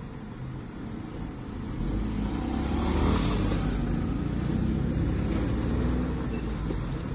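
Car engine and road noise heard from inside the cabin as the car moves off in traffic, growing louder about two seconds in.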